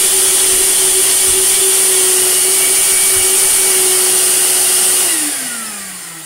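Goblin Aquavac Bulldog wet-and-dry vacuum cleaner running nice and quiet, a steady motor hum under the rush of air. About five seconds in it is switched off and the motor winds down, its hum falling in pitch as the sound fades.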